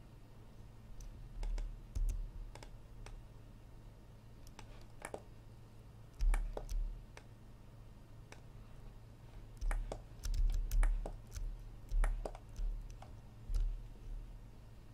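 Irregular clicks and taps of a computer mouse and keyboard being worked, over a low steady hum.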